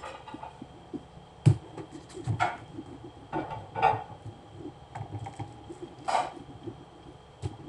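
Kitchen knife cutting through watermelon, with a series of uneven knocks and scrapes as the blade strikes the metal tray beneath and wedges are moved.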